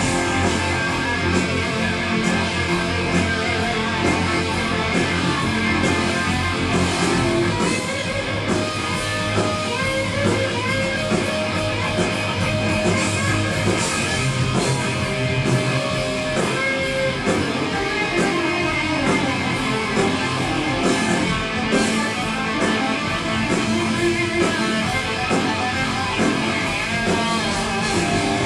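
Heavy metal band playing live, guitar-led, loud and dense, with the bass line shifting to new notes a few times.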